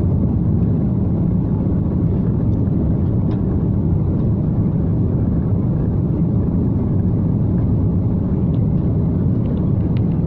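Steady low cabin noise of a jet airliner descending to land: engines and rushing air heard from inside the cabin at a window seat.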